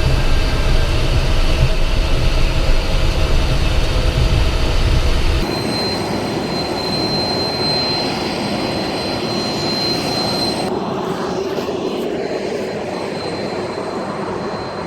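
Jet aircraft noise on the ground: a loud low rumble that cuts off abruptly about five seconds in, replaced by a lighter steady jet noise with a thin high whine, with another sudden change about halfway through.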